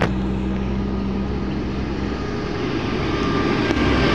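Moving motor vehicle driving across a bridge: a steady low engine hum under road and wind noise, growing a little louder near the end.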